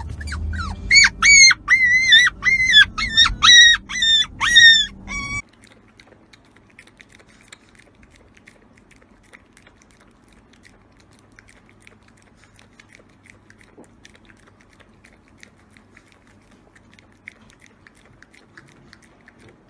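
An animal's high, squeaky calls, about ten short ones in quick succession, cut off suddenly about five seconds in; after that only faint background noise.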